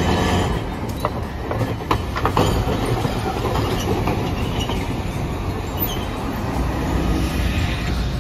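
Hiroden 1900-series tram running past close by: a steady low rumble from its running gear, and its steel wheels clacking sharply a few times, about one to two and a half seconds in, as they cross the rail joints and crossings of the junction track.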